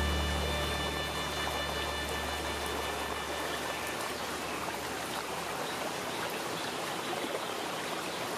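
Steady water noise with a few faint ticks, while a long low note of the background music fades out over the first four seconds.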